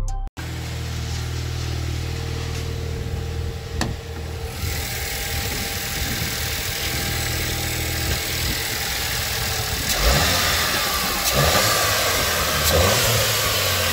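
Volkswagen Jetta GLI's 2.0 TSI turbocharged four-cylinder running at idle, heard from under the open hood, a steady low hum. A hiss grows louder about four seconds in, and the sound gets rougher and a little louder about ten seconds in.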